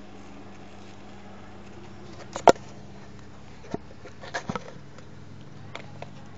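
A few short, sharp clicks and taps, the loudest about two and a half seconds in and a small cluster near four and a half seconds, over a faint steady hum.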